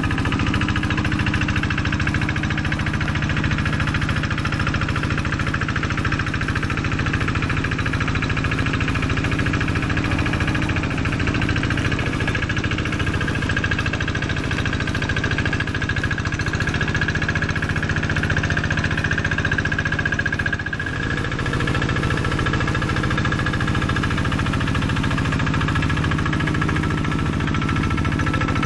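Single-cylinder Kubota diesel engine of a Quick G1000 Boxer hand tractor running steadily under load as its cage wheels puddle and smooth a flooded rice paddy. The note dips briefly about two-thirds of the way through.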